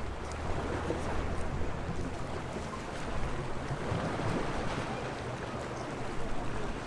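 Sea waves washing against the shore in a steady rush of water. A low hum underneath fades out about two seconds in.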